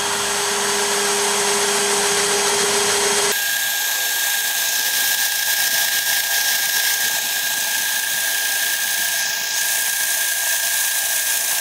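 DeWalt DCD709 cordless drill in first (low) gear, its motor running steadily under load as a 13 mm bit bores into a steel square tube. About three seconds in, the audio is sped up fourfold, so the steady whine jumps to a much higher pitch.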